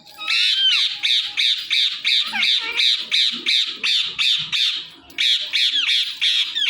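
Ringneck parakeet (rose-ringed parakeet) squawking in a rapid run of harsh calls, about four a second, with a brief break about five seconds in.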